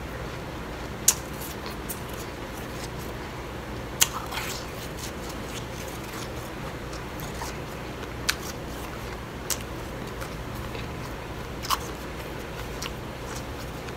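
About five sharp, widely spaced clicks and crunches from eating blended ice with a metal spoon out of a glass bowl, the first two loudest, over a steady low background hum.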